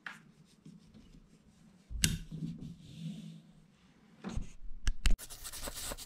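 Hands handling thin cord on a carabiner: the rope rubs and scratches, with louder handling noises about two seconds in and again near the end, where the scratching grows dense before cutting off suddenly.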